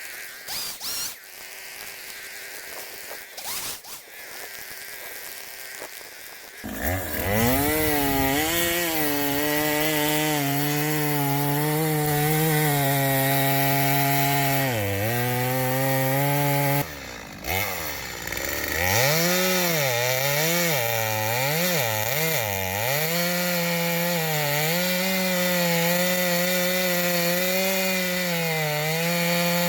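Brand-new Stihl chainsaw starting up after a few seconds of quieter clicks and knocks, then running at high revs while cutting a felling notch in a dead hardwood tree. Its pitch sags each time the chain bites into the wood, and it drops off briefly just past halfway before revving again.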